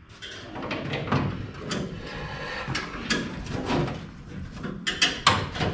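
A wrench clanking and scraping against a steel race-car chassis in repeated strokes, roughly two a second, with a few sharper clicks near the end, as a seized suspension bolt is worked at.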